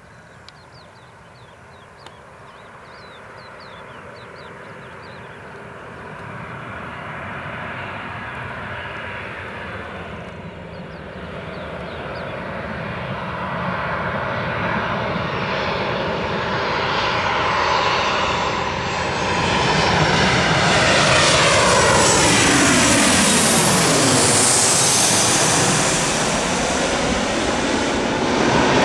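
Boeing 737-800 jet on landing approach, its CFM56 turbofan engines growing steadily louder as it nears, then passing close by with a whine that sweeps down in pitch about twenty seconds in and stays loud to the end.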